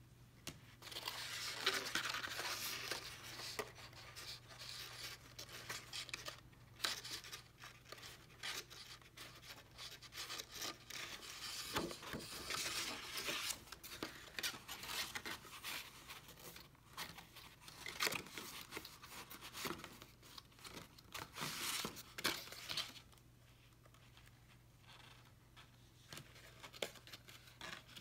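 Card stock paper rustling, scraping and crinkling as folded paper pieces are handled and pressed together, with small taps and clicks. It goes quieter a few seconds before the end.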